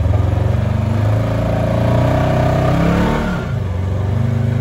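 RS1 rear-steer rock-crawling UTV's engine revving under load as it climbs a near-vertical rock slot. The pitch rises for about two seconds, drops off sharply about three seconds in, then settles to a steady, lower run.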